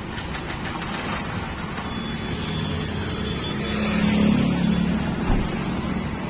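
A motor vehicle driving on the road, engine and road noise steady and swelling louder about four seconds in, with a short knock a little after five seconds.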